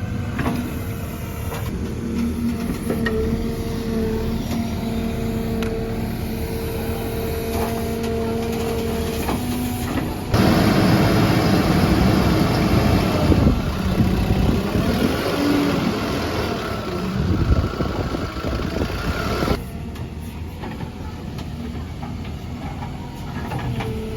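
Backhoe loader's diesel engine running steadily, then rising to a louder, working note with shifting pitch from about ten seconds in, as if under load. It drops back to a quieter run a little under ten seconds later.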